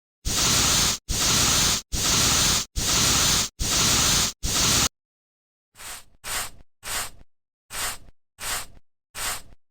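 Keyboard-cleaning spray hissing in six bursts of just under a second each, then, about a second later, a run of shorter swishing strokes that fade quickly, about one and a half a second.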